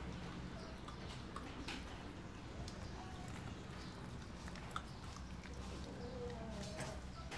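Two puppies play-fighting, with faint, short growls and yips and the scuffle of paws and snapping mouths. A steady low hum lies underneath.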